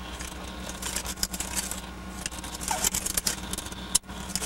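Metal oil filter wrench clicking and scraping against a spin-on oil filter as it is turned loose under a car, over a steady low hum.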